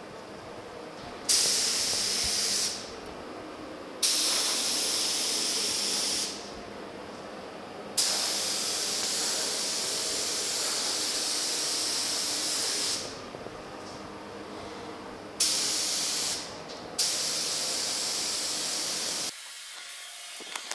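Gravity-feed paint spray gun hissing as it sprays automotive base coat, in five trigger pulls of about one to five seconds each. Each pull starts sharply, with the longest one in the middle.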